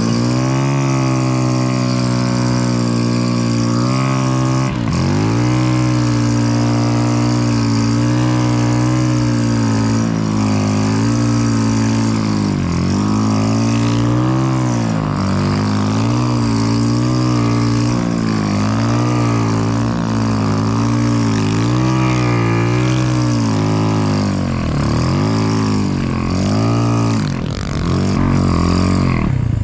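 Engine of an off-road vehicle running hard at high revs, held on the throttle throughout. Its pitch drops briefly and climbs back every few seconds, with the deepest dips around 5, 13, 25 and 28 seconds in.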